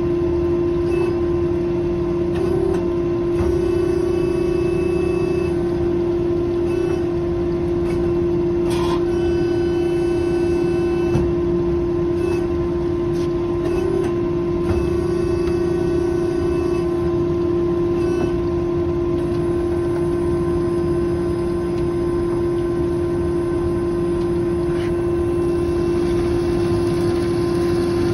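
Amada HA250W automatic horizontal band saw running, with a strong steady hum of one unchanging pitch over a lower mechanical drone. It is working through an automatic cutting cycle on small metal tube.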